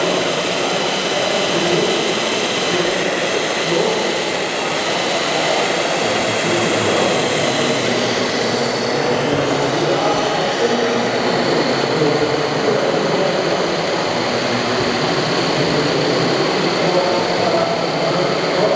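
Steady, loud din of a busy exhibition hall: a mix of crowd babble and machine noise, with thin, steady high-pitched whines running through it.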